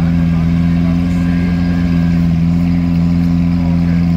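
A vehicle engine idling, a loud, even low hum that holds one pitch throughout.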